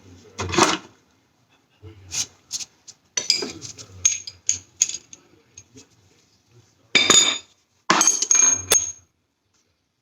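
Metal car parts and tools clanking and clattering in several separate bursts with a ringing metallic edge, the loudest about seven and eight seconds in.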